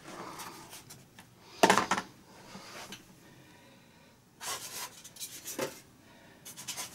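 A foam RC model jet wing being handled, moved and turned on a cutting mat: a few short rubbing and scraping sounds, the loudest about a second and a half in.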